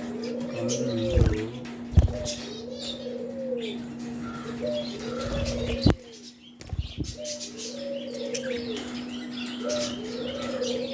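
Cage birds calling: high chirping from small parrots such as budgies and lovebirds, and a low call that rises and falls, repeated every second or two. A steady low hum runs underneath, and a few sharp knocks stand out, the loudest about two seconds and six seconds in.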